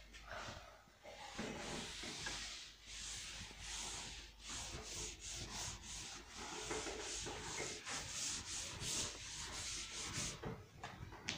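A duster rubbed over a chalkboard in repeated back-and-forth strokes, wiping chalk off the board. The strokes get quicker partway through and stop shortly before the end.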